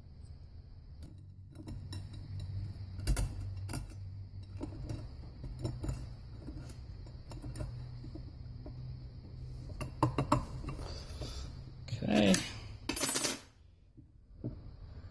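Small coil springs and pins being set one at a time into the steel rear clutch drum of a 1955 Oldsmobile Hydra-Matic transmission: scattered light metal clicks and clinks, with two louder metallic rattles near the end, over a low steady hum.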